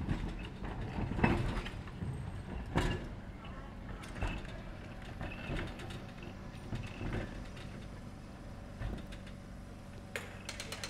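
Electric tram running with a steady low hum, and a knock or clunk about every second and a half along with creaks; the loudest knock comes about a second in.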